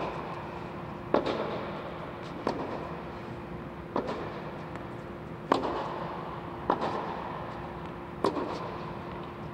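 Tennis rally on a hard court: sharp pops of the ball off the racket strings and off the court, one about every second and a half, echoing under the inflated dome. A steady low hum runs underneath.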